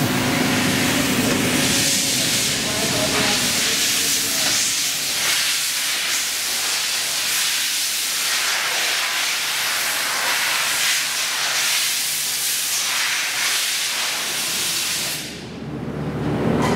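Steady, loud hiss of rushing air, like a compressed-air blower or ventilation running in a factory workshop. It stops abruptly about fifteen seconds in.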